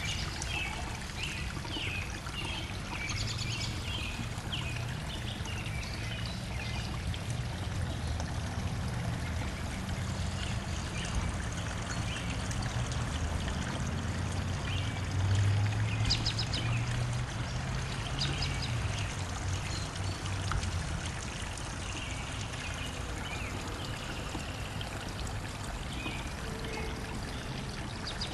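Birds chirping at sunset: many short, repeated calls, one after another, over a steady rushing noise. A low rumble swells briefly past the middle.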